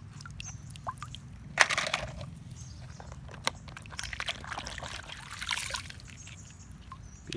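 Water splashing and pouring in uneven surges, with a few sharp clicks and knocks, the loudest about one and a half seconds in, over a steady low hum.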